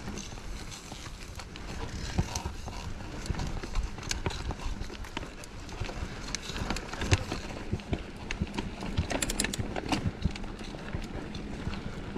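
Mountain bike clattering over rough singletrack: many irregular knocks and rattles over a steady low rumble of tyres on dirt, with a denser run of sharp clicks near the end.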